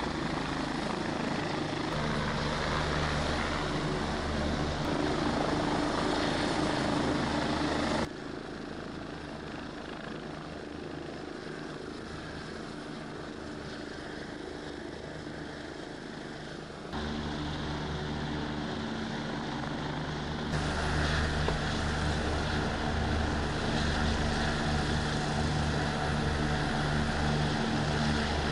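Helicopter hovering for a winch rescue, its rotor and engine running steadily. The sound drops abruptly about eight seconds in and comes back louder about nine seconds later.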